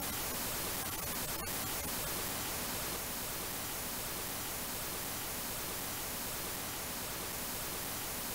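Steady hiss of television static, an even noise spread across all pitches.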